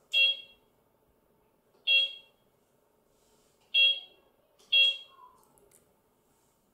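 White toy humanoid robot giving four short electronic beeps, irregularly spaced, as commands are keyed in from its remote in programming mode.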